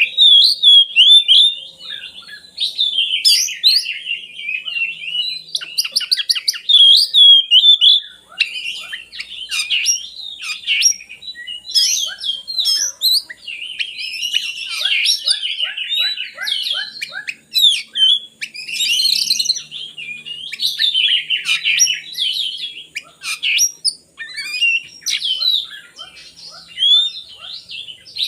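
Oriental magpie-robin (kacer) singing a fast, varied song of whistles, trills and chattering notes, in phrases with brief pauses.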